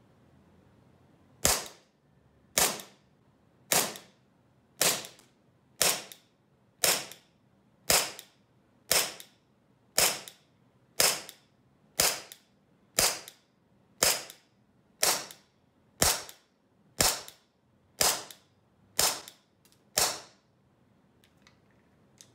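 SRC SR92 full-metal gas blowback airsoft pistol fired on a CO2 magazine: about nineteen sharp shots at a steady pace of roughly one a second, each with the slide cycling.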